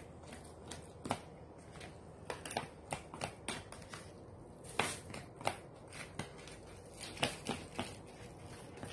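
Irregular light clicks and taps of eating utensils against dishes and plastic takeout containers as food is served out, with some rustling in between.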